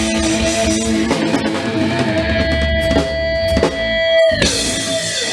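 Rock band playing live: electric guitar over a drum kit. A single guitar note is held for about two seconds, with a few drum hits near the end.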